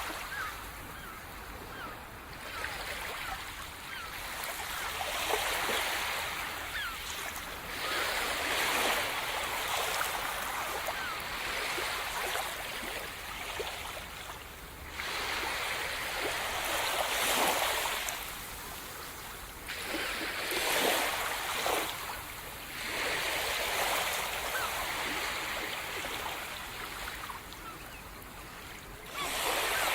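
Sea surf: waves breaking and washing up the shore, the hiss swelling and falling back every few seconds.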